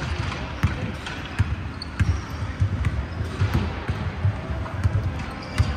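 Basketballs bouncing on a hardwood gym floor: irregular low thuds, about one or two a second.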